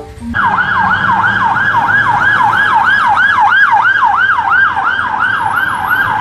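Police van's siren in a fast yelp, its pitch sweeping rapidly up and down about three times a second, over a low steady rumble.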